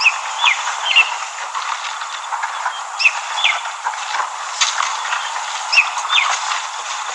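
A bird repeatedly calling in short groups of two or three quick downward-sliding notes, over a steady rushing hiss with scattered crackles and clicks.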